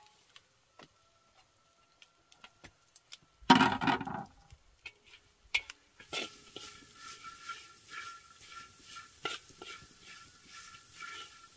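Long cooking chopsticks stirring sugared coconut strips in a dry iron wok: a few light taps at first, then from about six seconds in a continuous scraping that swells in a regular rhythm as the strips are turned. One loud short clatter comes about three and a half seconds in.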